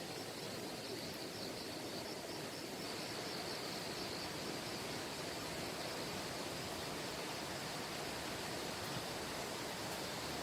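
Steady rushing of a valley stream. A faint, rapid, high-pitched chirping runs through the first half.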